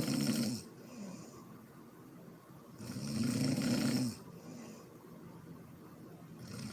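A sleeping woman snoring, with a loud, rough snore about every three and a half seconds. Each snore is followed by a shorter, softer, breathy hiss. One snore trails off about half a second in, a second comes about three seconds in, and a third begins near the end.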